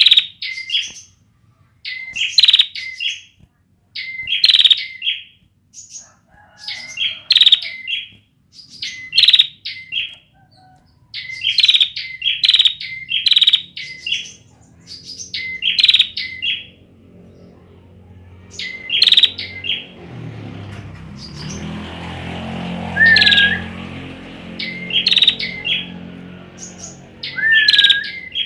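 A ciblek (bar-winged prinia) giving short, sharp chirping phrases over and over, about one every one to two seconds; its song is not yet fully developed. Past the middle, a low hum with several steady tones comes in under the calls. Near the end a few calls become a whistle that dips and then holds.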